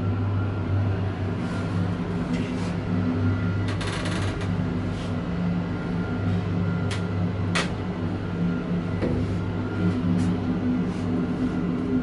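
Schindler elevator car travelling: a steady low hum from the drive, with a few sharp clicks and rattles along the way.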